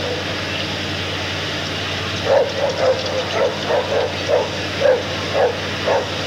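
A dog barking over and over, about two barks a second, starting about two seconds in, over a steady low hum.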